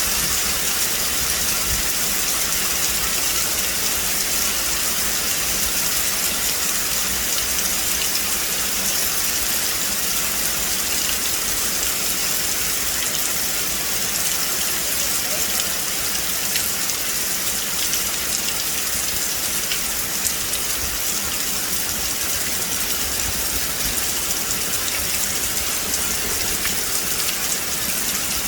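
Steady rain falling on a forest, a constant even hiss with fine patter of drops on leaves.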